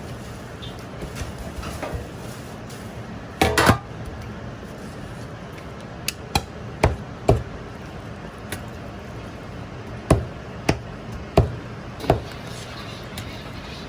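Kitchen utensils knocking: a short loud clatter about three and a half seconds in, then single sharp knocks at uneven intervals. A steady low hum runs underneath.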